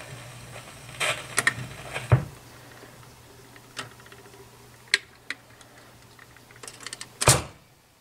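Sylvania console record player: a low motor hum under scattered light clicks, then a loud clunk about seven seconds in, after which the hum stops.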